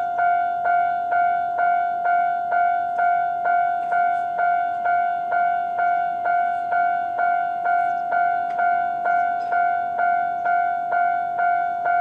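Japanese railway level-crossing alarm sounding its normal electronic bell tone: one ringing note struck a little over twice a second, each strike ringing on into the next. It is the crossing's warning that a train is approaching.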